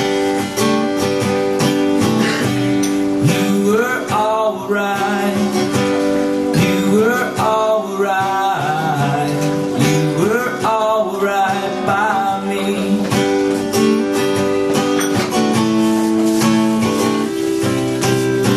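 Acoustic guitar strummed through an instrumental break in a song. Pitched notes slide upward over the strumming a few times.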